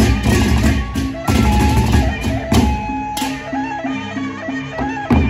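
Sasak gendang beleq ensemble playing: big barrel drums and clashing hand cymbals, a shrill reed-pipe (pereret) melody, and a steady repeated low note about three times a second. The cymbal crashes are dense for the first three seconds, then thin out with one more crash near the end.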